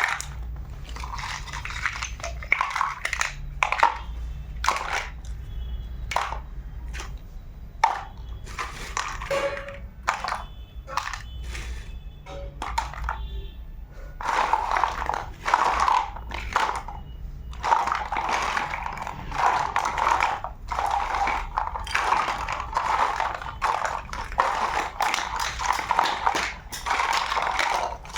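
Plastic toy kitchen pieces and their packaging being handled and unpacked: a string of sharp clicks and taps, then a denser crinkling and crackling about halfway through.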